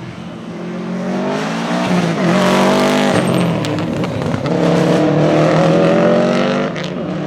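Subaru Impreza 555 Group A rally car's turbocharged flat-four boxer engine accelerating hard past, its rumble climbing in pitch and getting louder. The pitch drops around three seconds in as it shifts up, then climbs again before the sound falls away near the end.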